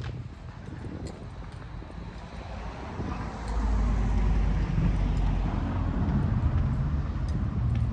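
A motor vehicle passing close by: a low engine rumble with tyre noise that swells to loud about three and a half seconds in.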